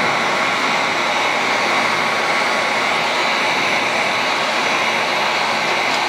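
Handheld electric heat gun running steadily, blowing hot air onto a sneaker's sole protector film to heat it onto the sole.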